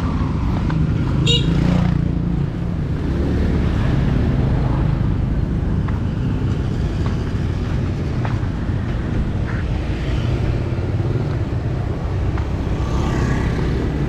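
City street traffic: motorbike and car engines running, with a steady low engine hum throughout. A brief high squeak sounds about a second in.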